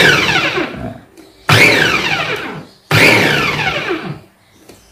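Mitochiba CH 200 electric chopper's motor run in three short pulses as its top button is pressed and released. Each pulse starts abruptly with a motor whine that falls in pitch and fades as the blades coast down.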